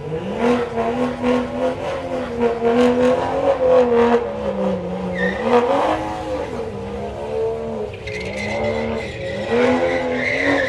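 BMW saloon doing a burnout: the engine is held at high revs that keep dipping and rising while the rear tyres spin. A high tyre squeal comes in over it near the end.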